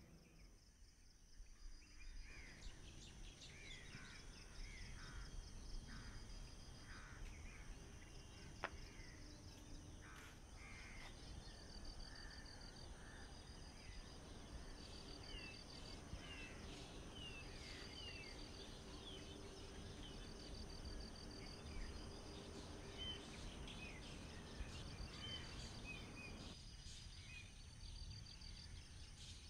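Faint outdoor ambience: birds calling over and over with short falling chirps, above a low, steady background hum.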